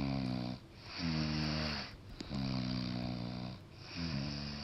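Snoring: a run of about four long snores, each lasting about a second, with short pauses between them.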